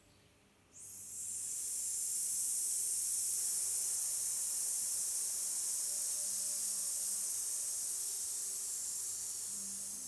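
A person exhaling slowly through the teeth in one long, steady 'sss' hiss: the Chi Kung healing sound for the lungs, made on the out-breath. It starts just under a second in and is held evenly.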